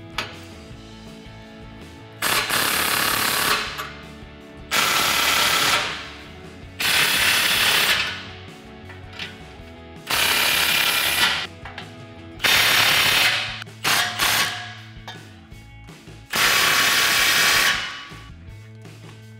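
Cordless impact wrench hammering in six bursts of about a second or so each, tightening the exhaust clamp nuts down for the final time. Faint background music runs underneath.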